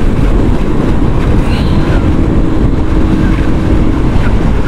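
Motorcycle riding on the road: steady engine and wind noise, with wind rushing over the microphone.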